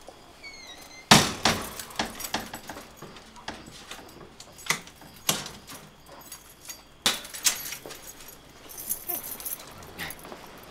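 Knocks, clicks and rattles of someone handling gear and a door in a dark room. A sharp bang comes about a second in and another about seven seconds in, with a few short, high chirps in the first second.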